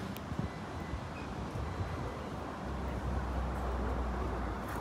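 Outdoor street background noise with a low rumble that comes in about halfway through and lasts about two seconds.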